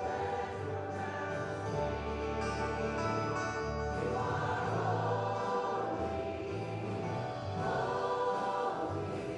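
Church choir and worship team singing a worship song together, with sustained group vocals over a steady instrumental accompaniment.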